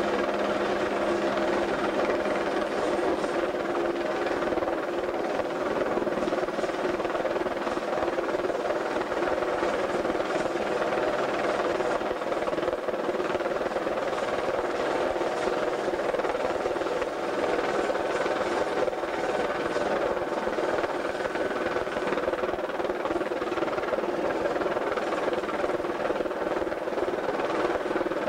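Helicopter hovering close overhead, its rotor and engine making a steady, loud drone that holds unchanged throughout.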